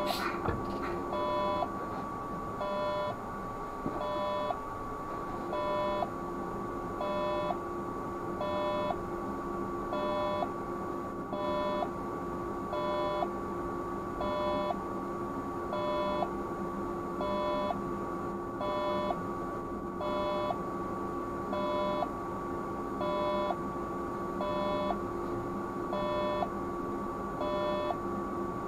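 A two-note electronic warning beep, one high tone then one lower, repeating steadily about every second and a half inside the cab of a stationary Škoda 30Tr SOR trolleybus. Under it runs a steady electrical hum and whine.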